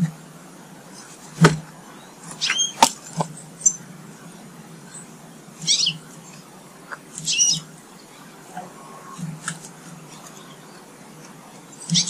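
Garden birds at a feeder giving short calls that slide down in pitch, four in all, with a few sharp clicks near the start.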